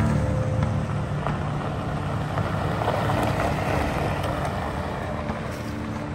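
Toyota Tacoma pickup driving slowly past on a gravel trail: the engine runs steadily while the tyres crunch over gravel. It is loudest as it passes about three seconds in, then fades as it pulls away.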